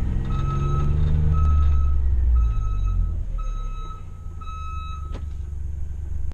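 Ecco backup alarm on a John Deere Gator beeping about once a second, which tells that the Gator is in reverse. The Gator's engine runs loudly underneath and eases off about two and a half seconds in.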